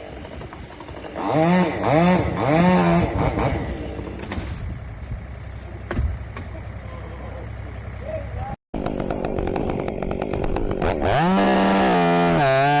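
Stihl two-stroke chainsaw revved in several short blips, then, after a break, revved up to full throttle and held at high speed.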